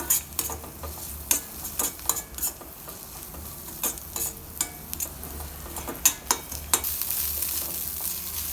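A utensil stirring and scraping prawns, onions and spices frying in oil in a kadai: irregular sharp clicks of metal on the pan over a steady sizzle that grows louder near the end.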